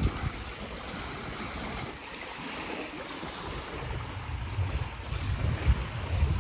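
Small lake waves lapping and washing on a pebble beach, with wind buffeting the microphone as a low rumble that grows heavier in the second half.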